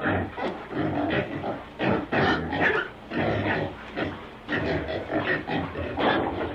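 Pigs grunting, a dense run of short calls one after another with no pause.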